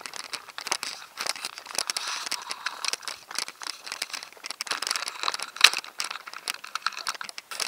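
Footsteps crunching through dry fallen leaves and gravel on a dirt track, an irregular run of crackles and crunches.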